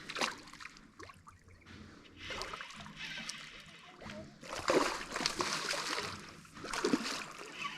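Water splashing in irregular bursts, loudest about halfway through and again near the end.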